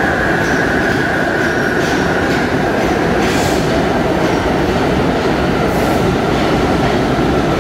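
New York City subway train running past through an underground station: a loud, steady rumble and rattle of wheels on rail, with a high squeal that slowly drops in pitch and fades, and a couple of sharp clacks about three and six seconds in.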